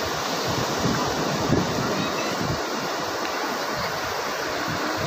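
Ocean surf breaking and washing up a sandy beach in a steady, continuous rush.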